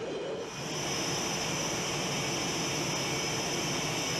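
F/A-18 Hornet's twin General Electric F404 turbofan engines running at low power while taxiing: a steady high-pitched whine over a rushing hiss.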